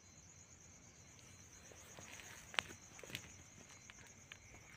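Crickets chirping steadily and faintly, a fast even pulsing, with a few short clicks and knocks from footsteps or handling, the sharpest about halfway through.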